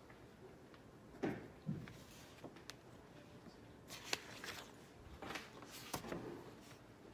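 Pages of a large paperback study book being turned, with paper rustling between about four and six seconds in. A few soft knocks on the desk come earlier, the loudest a little over a second in.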